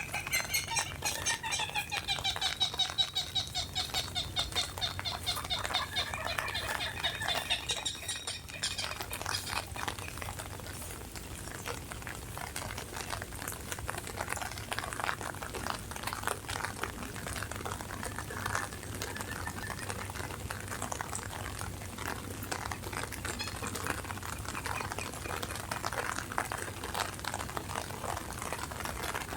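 Steady rain pattering, with a bird calling in quick trills over roughly the first eight seconds before the rain carries on alone.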